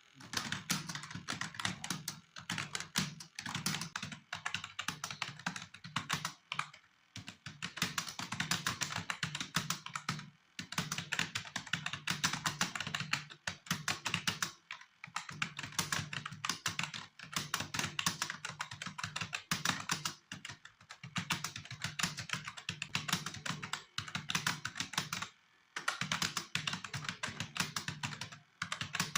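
Fast typing on a computer keyboard: rapid key clicks in bursts of a few seconds, broken by short pauses.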